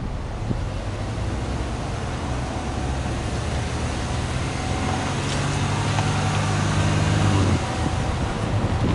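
Exhaust of a Subaru Legacy Touring Wagon 2.5GT's turbocharged 2.5-litre flat-four, heard at the twin tailpipes, running steadily with a low, even note that grows gradually louder.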